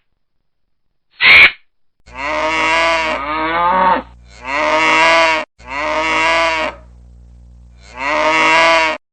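Cow mooing four times in long, drawn-out calls, the first falling in pitch. A single short harsh call sounds about a second in.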